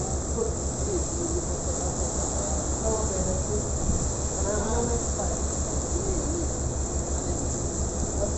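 Moran tugboat's diesel engines running with a fast, steady low throb as the tug pushes against a cruise ship's hull, over a continuous high hiss.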